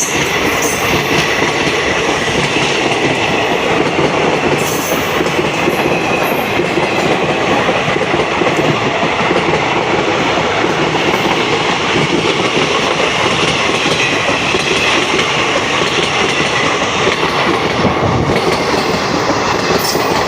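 A train passing without pause: steady rumble of wheels on the rails with the clickety-clack of the wagons, and a few brief sharper clanks along the way.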